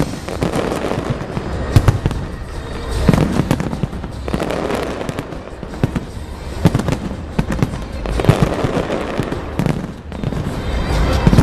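Fireworks display: aerial shells bursting in a dense, irregular run of bangs and crackles.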